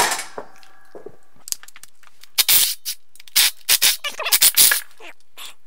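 A metal clank right at the start that rings on briefly, then a cordless drill run in a series of short trigger bursts, driving a fastener on a power wheelchair's steel frame.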